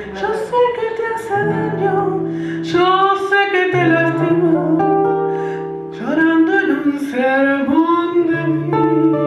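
Recorded tango music with plucked guitar and a sustained melodic line over held bass notes.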